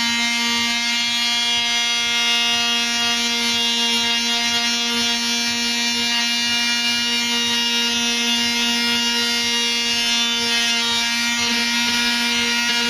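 Electric power sander running steadily at full speed, sanding a pinball machine's side rail smooth; one even motor whine with no change in pitch.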